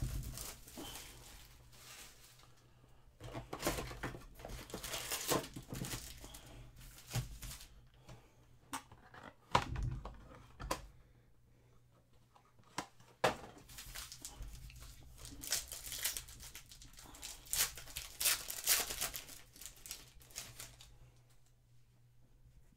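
Plastic shrink wrap crinkling and rustling as a trading card hobby box is unwrapped, then foil card packs being handled and torn open, with a few sharp clicks.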